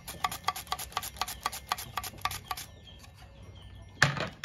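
Cucumber being sliced on a handheld plastic mandoline slicer: a quick, even run of short strokes, about five a second, that stops after two and a half seconds. A single knock about four seconds in.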